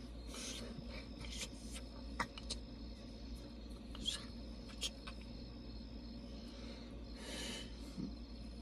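Faint rustles, rubs and small clicks from hands and clothing as a person signs, over a steady low hum. Just before the end comes a short breathy hiss: a drag on a cigarette.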